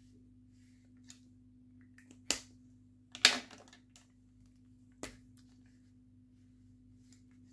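A few short, sharp clicks and taps from Mr. Pen gel highlighters being capped, uncapped and set down on a desk. The loudest comes about three seconds in. A faint steady hum sits underneath.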